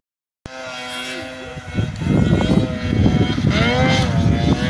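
700 cc snowmobile engine running, starting about half a second in, then getting louder with its pitch rising and falling as it is revved.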